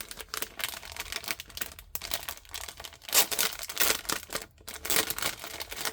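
Thin plastic packaging crinkling and rustling as it is handled, a steady run of irregular crackles with a few louder ones about halfway through.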